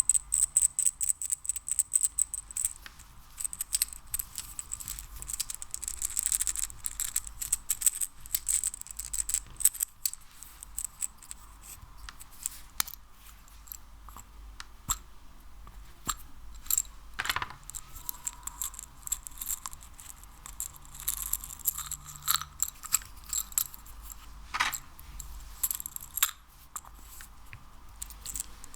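Close-miked sticky material being pressed and pulled by hand: a rapid run of small clicks and pops at first, then sparser crackles, with two louder snaps, one a little past halfway and one near the end.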